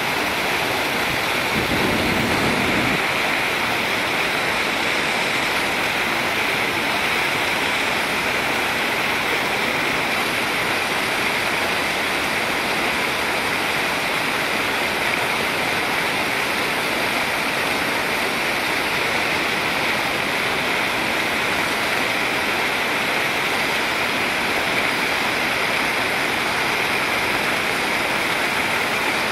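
Muddy floodwater pouring steadily over the steps of a concrete dam weir and churning into white water below: a continuous rushing cascade.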